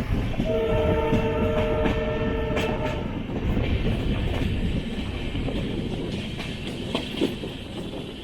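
Passenger train running along the track, heard from on board as a steady rumble. A two-note horn sounds about half a second in and holds for roughly two and a half seconds.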